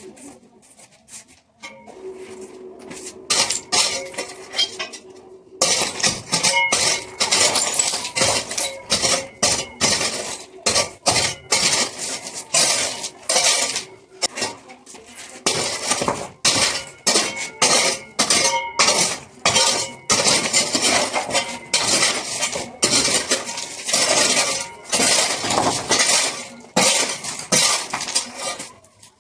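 Rapid, repeated sharp clinking strikes of a tool chipping into tile and masonry, breaking open the wall for concealed pipes, with short pauses between runs of blows.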